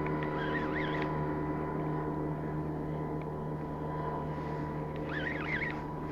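Motorboat engine running steadily at idle, an even hum. A bird calls briefly twice over it.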